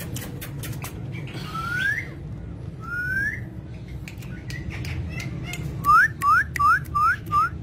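Pet parrot whistling: two rising whistles, then near the end a quick run of five short rising whistle notes, the loudest part, over scattered sharp clicks and a low steady hum.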